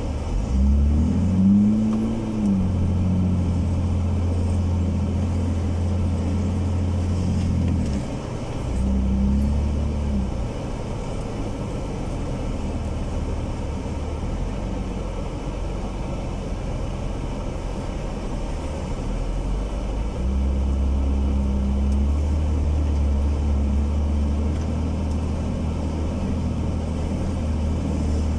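Jeep TJ engine heard close up from the hood, revving up and back down about a second in and again briefly near nine seconds, then running lower and steadier before pulling harder again from about twenty seconds in.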